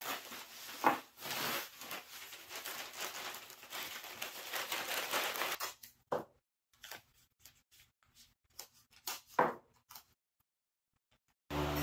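Brown kraft paper rustling and crinkling as it is handled and wrapped as masking, then several short tearing sounds as strips of painter's tape are pulled and pressed on. A steady hum cuts in just before the end.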